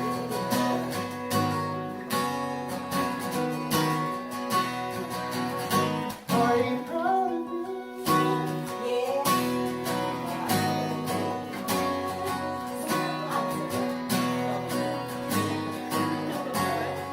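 Acoustic guitar strumming a steady chord progression in an instrumental passage of a song, with a short wavering melody line about six seconds in.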